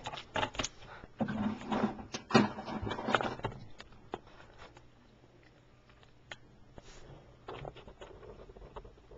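A person's low, growl-like vocal sounds mixed with close rustling and knocks in the first few seconds, then only a few faint clicks.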